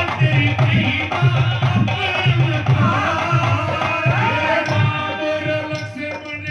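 Loud Indian folk-style dance music with a tabla-like drum beat and a winding melody over it, played through a DJ sound system.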